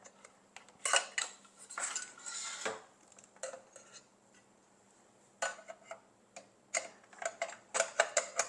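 Removable cooking plates of a 3-in-1 sandwich, waffle and grill maker clattering and clicking as they are taken out and fitted in, with a short scrape about two seconds in. The clicks stop for a moment midway, then come thicker near the end.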